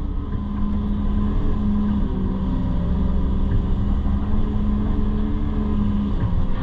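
Excavator's diesel engine running steadily with a constant low hum, working as the bucket is drawn across the fill once more to smooth it.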